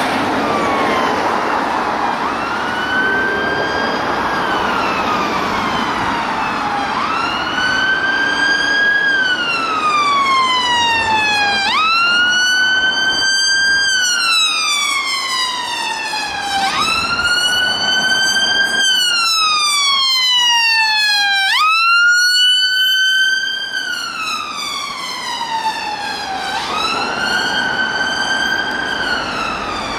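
Ambulance siren on wail: a quick rise in pitch, then a slow slide down, repeating about every five seconds. Road traffic noise runs underneath at first.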